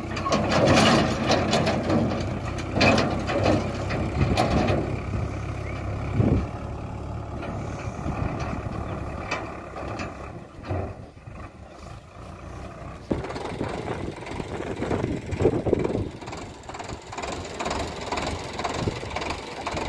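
Sonalika 750 tractor's diesel engine running while it pulls a trolley through a muddy field, louder in the first few seconds, easing in the middle and picking up again, with scattered knocks and rattles.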